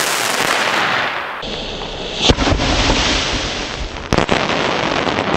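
Lone Star Knisterteufel fire pot spraying a tall fountain of crackling sparks: a steady loud hiss, with sharp cracks about two seconds in and again about four seconds in.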